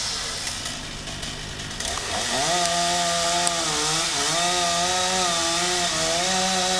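A two-stroke chainsaw running. About two seconds in its engine pitch rises and then wavers up and down as the saw is loaded, typical of cutting wood.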